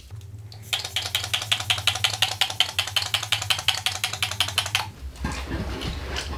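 Makeup setting spray pumped rapidly at the face: a fast, even run of short sprays, about nine a second, for around four seconds, then it stops.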